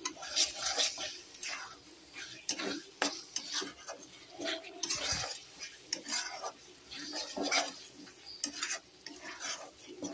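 Metal spatula stirring and scraping thick masala with chopped tomatoes around a kadai, in irregular scrapes and clatters, while the masala sizzles as it fries.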